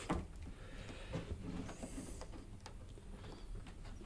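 Faint scraping and small scattered clicks of a blunt knife easing the retaining band off a washing machine's rubber door seal.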